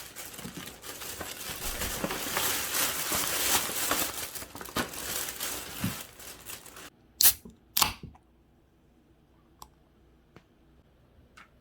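Crinkling and tearing of packaging material for about seven seconds, then two sharp clicks about half a second apart, followed by a few faint ticks.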